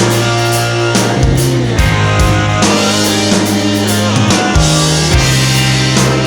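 Background rock music with electric guitar, bass and drum kit keeping a steady beat.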